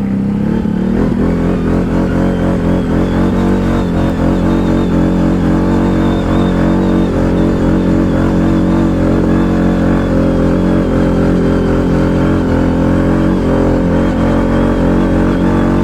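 ATV engine running at a steady speed, a constant loud drone with only slight wavers in pitch and no big revs.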